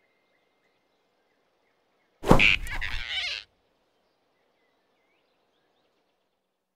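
Cartoon sound effect of a large animal snatching a small one: a single sudden, loud rush of sound about two seconds in that lasts just over a second, with near silence around it.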